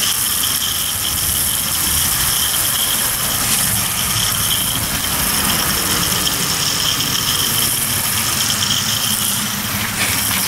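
Garden hose-end sprayer jetting a wide fan of water and insecticide against wooden siding and the ground: a steady loud hiss with a high whistling tone running through it.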